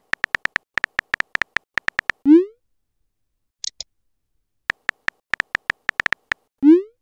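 Texting-app sound effects: a quick run of keyboard key clicks as a message is typed, then a short rising swoop as it is sent. A brief double blip follows, then a second run of key clicks and another rising send swoop near the end.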